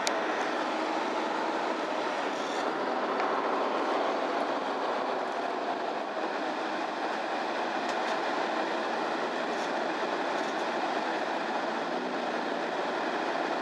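Cabin sound inside a MAN Lion's City Ü bus: steady engine and running noise, with a few faint clicks and rattles.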